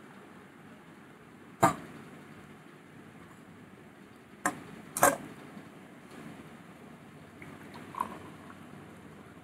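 Stainless-steel kitchen vessels clinking and knocking as they are handled and set down: a sharp clink about one and a half seconds in, two more around four and a half and five seconds, and a faint one near the end. A faint room hum lies beneath.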